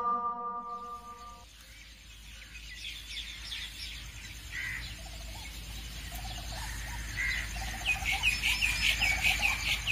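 The last held note of the call to prayer from a rooftop horn loudspeaker fades out in the first second and a half. Then birds chirp, more and more busily near the end.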